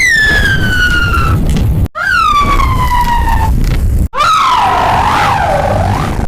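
Siren sound effect chopped into three abrupt cuts: each starts with a quick rise in pitch, then glides slowly downward. The third cut wavers up and down in pitch before falling, over a loud low rumble throughout.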